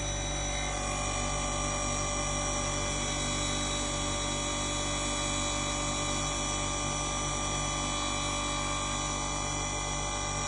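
Brake disc grinding machine's diamond grinding wheels grinding a brake disc dry, with the cooling water shut off: a steady, loud machine whine made of many high, even tones over a motor hum.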